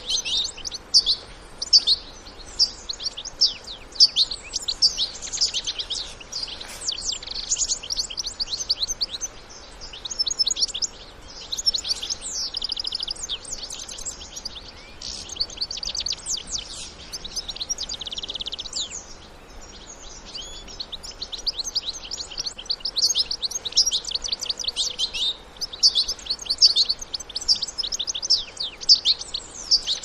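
European goldfinches, adults and fledglings, twittering in fast runs of high chirps, with a buzzy trill about twelve seconds in and again around eighteen seconds.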